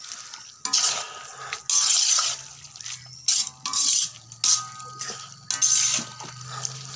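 Wooden spatula stirring chicken and spinach in a black iron kadai: repeated scraping strokes against the pan, roughly one a second, with the wet food sizzling between them.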